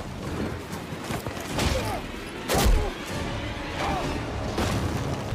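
Action-film sound mix: music score under a series of swooshes and impacts, the loudest a heavy thud about two and a half seconds in.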